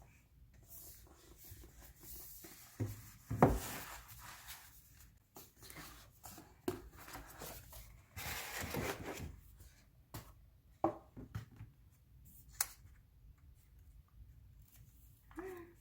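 Hands handling packaging: quiet rustling and tearing with light clicks and taps, the loudest rustle a few seconds in.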